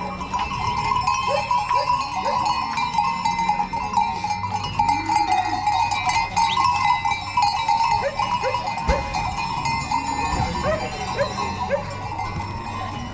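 A herd of goats on the move, their neck bells clanking without a break, with short goat bleats now and then, more of them in the second half.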